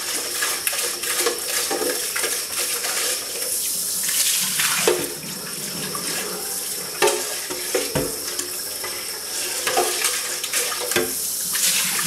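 Kitchen tap running water into a sink and splashing over a blender container held under it for rinsing, with a few knocks as the container is handled.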